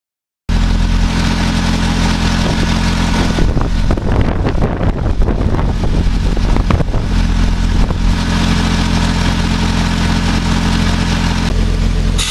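Sullivan D185Q5 portable air compressor's John Deere four-cylinder diesel engine running at a steady speed, with a rougher, noisier stretch in the middle.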